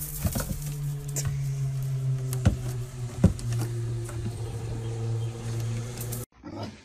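A steady low hum, with a few sharp clicks over it. It cuts off suddenly near the end.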